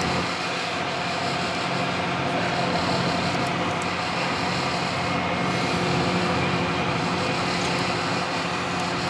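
Tour boat's engines running with a steady drone, heard from inside the cabin over an even wash of noise.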